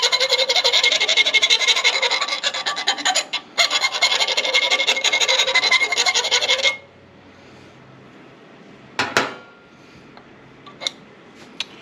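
Metalwork on a small aluminum bracket: a steady, loud rasping and scraping, briefly interrupted once, that stops about two-thirds of the way through. A few light clicks and taps follow near the end.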